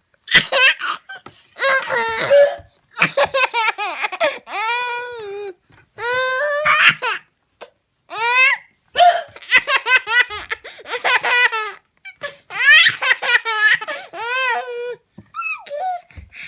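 A baby laughing hysterically in repeated high-pitched fits with short gaps between them, set off by a woman's hiccups, which come in the pauses.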